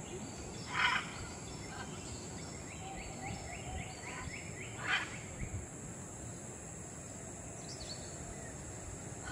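Scarlet macaw giving two short harsh squawks about four seconds apart, over a steady high insect drone. Between the squawks comes a quick run of faint descending chirps.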